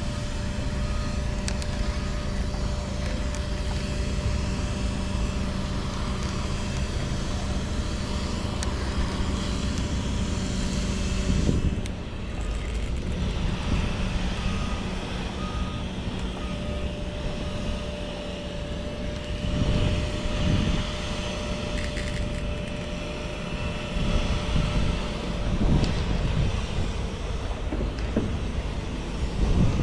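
A steady motor hum over low rumbling noise; the deeper part of the hum drops away about twelve seconds in.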